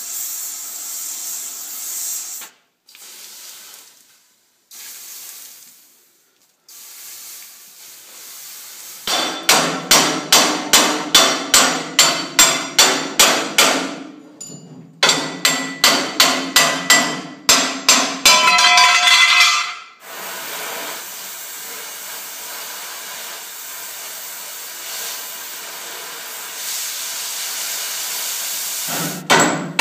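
Oxy-fuel torch hissing, then a run of sharp metal-on-metal blows, about two or three a second with some ringing, knocking a heated, seized steel plate off a swather auger shaft; a second run follows after a short break. Near the end the torch hisses steadily while cutting steel.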